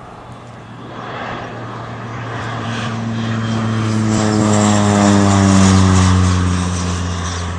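Propeller aircraft flying low overhead: its engine drone grows louder, peaks about five to six seconds in, and drops in pitch as it passes.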